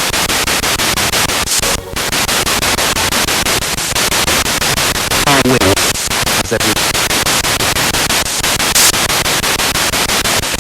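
Spirit box radio sweeping through stations: loud hissing static chopped into rapid, even pulses as it scans. A brief voice-like snippet breaks through about five and a half seconds in.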